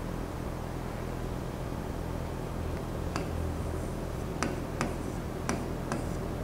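Steady low room hum, with about six sharp taps spread irregularly over the second half.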